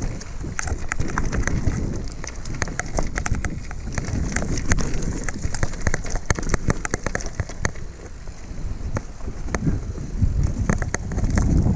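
Mountain bike riding down a stony singletrack: wind buffeting the rider-mounted microphone, with many quick clicks and rattles from the bike and tyres over loose stones.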